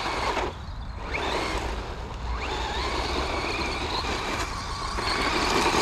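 FTX Crossbow 1/10 truggy with a low-kV brushless motor running on its test drive, a faint rising motor whine now and then over steady noise, with wind rumbling on the microphone.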